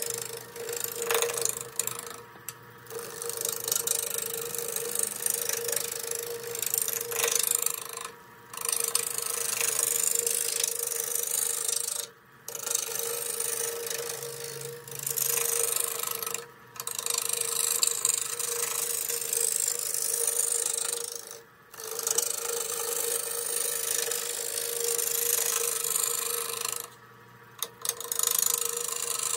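Wood lathe running with a steady hum while a gouge cuts a spinning, dried tea tree (melaleuca) branch, roughing it down to a cylinder: a continuous rough, rattling hiss of shavings being cut. The cut breaks off for a moment about six times as the tool lifts away, while the lathe's hum carries on.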